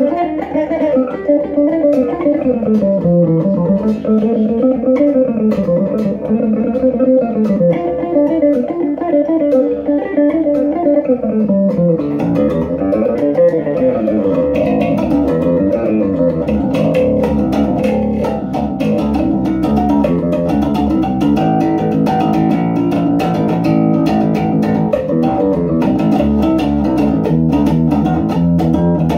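Amplified electric bass guitar playing a solo melodic line, with notes sliding up and down the neck. About halfway through it turns into faster, denser playing with sharper note attacks.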